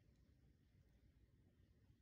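Near silence: faint low room tone.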